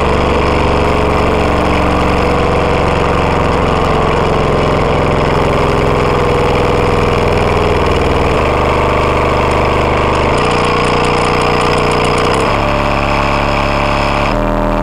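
Pioneer subwoofer driver, unmounted with no enclosure, driven hard and playing loud, distorted bass: steady low notes with a heavy buzz over them, shifting in pitch every couple of seconds in the second half.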